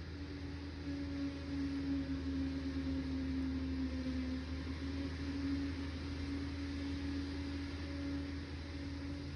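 Liebherr PR 746 crawler dozer's diesel engine running steadily, its pitch dipping slightly around the middle and coming back up.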